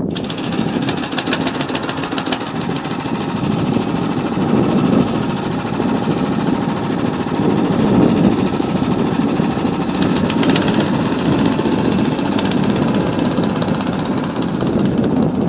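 Engine of a Burlak M2 tracked motorized towing unit running under load as it is worked free of deep snow, its revs rising and falling, with some rattling.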